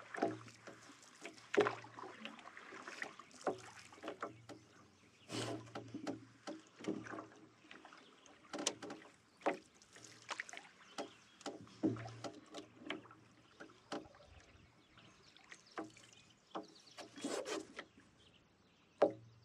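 A canoe being paddled on calm water: quiet paddle strokes, with short splashes and light knocks on the hull every second or two.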